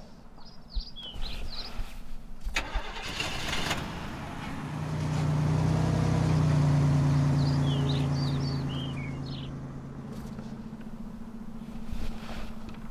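A car drives past, its engine swelling to a peak about halfway through and then fading away. Small birds chirp twice, near the start and again as the car fades.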